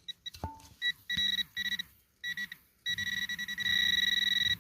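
Metal-detecting pinpointer beeping as it is worked over a buried metal target, single high-pitched beeps quickening into a steady continuous tone near the end as the probe closes in on the target. A brief knock about half a second in.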